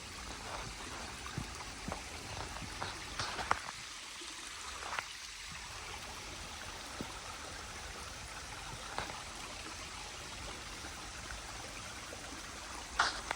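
A creek running steadily, with scattered light clicks and knocks over it.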